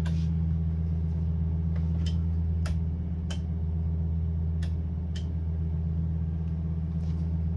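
Motorhome engine idling with a steady low hum, a few light clicks over it.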